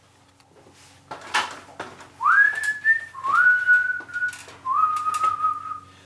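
A man whistles three notes, each sliding up and then held, each a little lower than the one before. A few light clicks come first.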